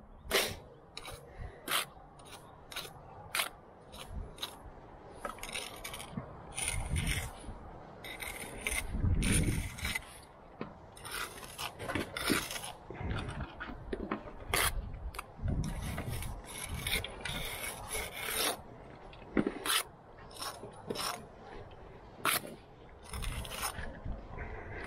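Steel brick jointer scraping along fresh mortar joints in a brick wall: a run of short, irregular strokes as the joints are tooled to finish the pointing.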